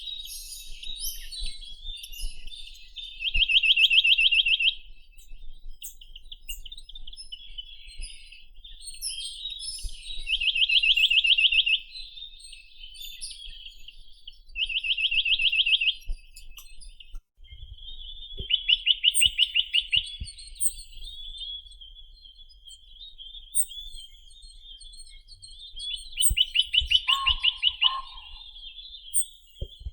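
Chinese nuthatch (Sitta villosa) singing: a fast, dry trill about a second long, repeated every few seconds. Fainter high calls from other birds sound in between.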